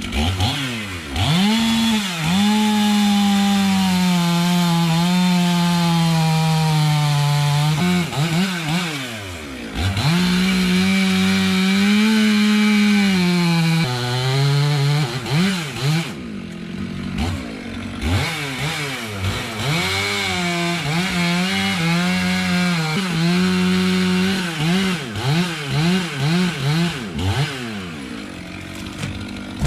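Chainsaw run at full throttle in long held pulls, its pitch sagging as it works and dropping away between, with a few quick throttle blips near the middle and again near the end.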